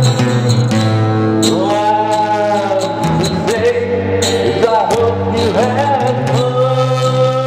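Slow song: a male voice sings long, sliding held notes over a sustained instrumental backing.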